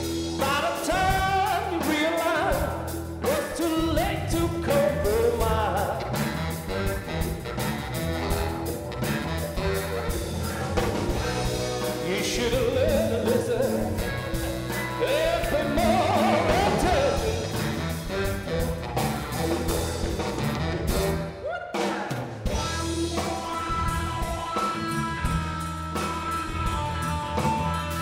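A live blues-rock band playing, with drums, electric guitar and bass under a bending lead melody. The band stops short for a moment about three quarters of the way through, then comes straight back in.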